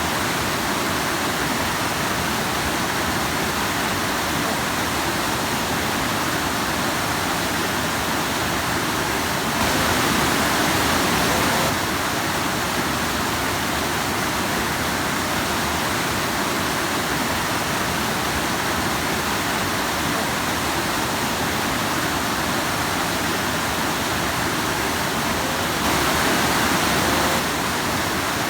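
Stream water rushing and splashing over rocks in a steady wash of noise. It swells a little louder twice, for a second or two each time.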